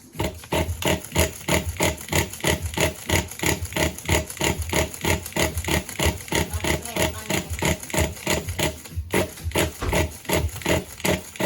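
Pull-starter of a 4WD RC car's 3.0 model engine yanked over and over, about three pulls a second, with a short break about nine seconds in. The engine turns over but does not catch: it is hard to start after months unused.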